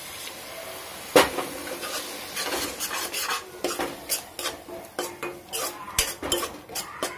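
Metal spoon stirring and scraping masala around a kadai, with a sharp knock against the pan about a second in and then many irregular scrapes and clinks. The masala sizzles faintly as it fries in oil with a little water added.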